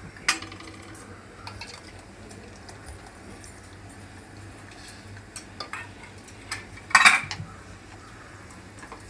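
Stainless-steel utensils clinking: a steel strainer and spoon tapping against a steel pot and bowl in a few scattered light clinks, with a louder cluster of clinks about seven seconds in.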